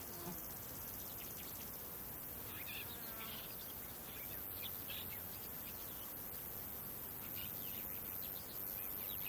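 Outdoor nature ambience: insects chirping steadily, with a few short bird calls around three and five seconds in.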